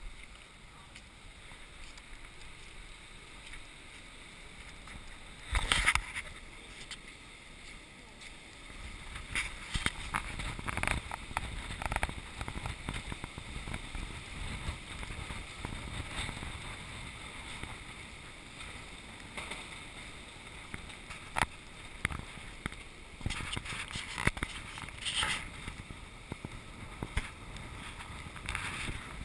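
Shallow storm floodwater sloshing and splashing around the camera, with wind and sharp splashes now and then, the loudest about six seconds in.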